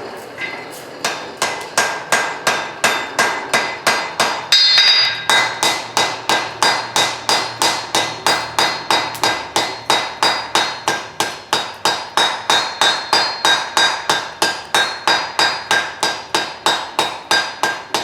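Blacksmith's hand hammer striking hot steel on an anvil in a steady rhythm of about three blows a second, each blow with a short ring, starting about a second in. The blows draw out a taper on the end of a forge-welded twisted bar.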